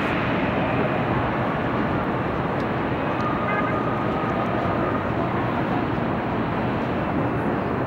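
Steady outdoor city din, with faint voices now and then.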